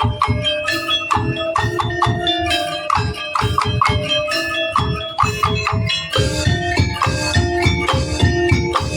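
Tongtek ensemble playing traditional Javanese percussion, with bamboo slit drums and drums beating a fast, dense rhythm under a melody on pitched instruments. About six seconds in, the low drum strokes grow denser.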